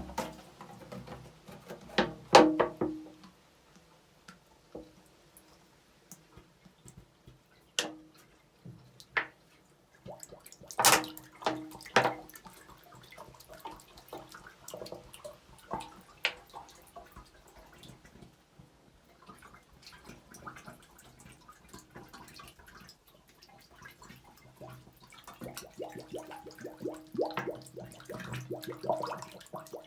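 Water bottles being dipped into a spring's pool and filled: water gurgling into the bottles, with splashes, drips and the knocks of the bottles being handled.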